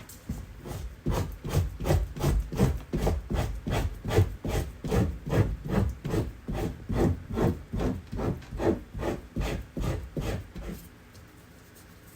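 Rhythmic scraping strokes, about three a second, of a blade drawn over an otter pelt to scrape the fat and flesh off the hide. The strokes stop near the end.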